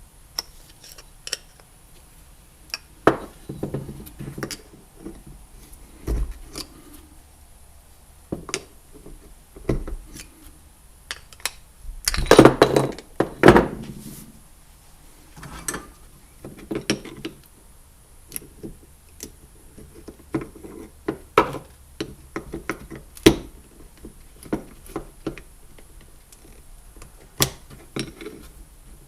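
Scattered clinks, clicks and knocks of metal trolling-motor parts being handled during a rebuild, with a louder cluster of knocks about twelve to fourteen seconds in.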